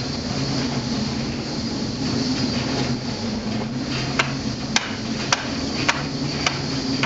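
Machinery running with a steady low hum, joined about four seconds in by a run of sharp knocks evenly spaced a little over half a second apart.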